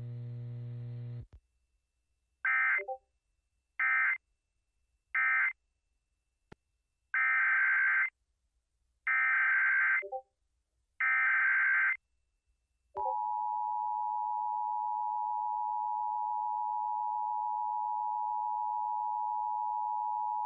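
Emergency Alert System tones: three short digital data bursts (the end-of-message code), then three longer digital header bursts announcing the next alert, then the steady two-tone EAS attention signal held for about nine seconds. A brief low hum sounds at the very start.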